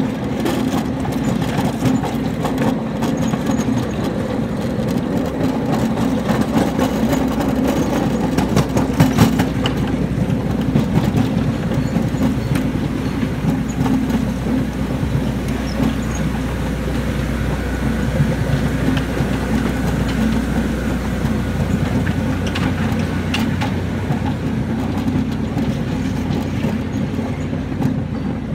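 Quarter-scale ride-on miniature train rolling along its track, a steady low drone of the running train with irregular clicks and clacks of the wheels over the rails, busiest about a third of the way in.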